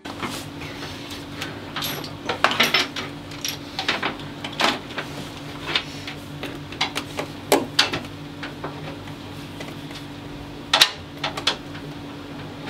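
Scattered small clicks, knocks and rattles of wire ends and tools being handled at the screw terminals of a Victron MPPT solar charge controller, over a steady low hum.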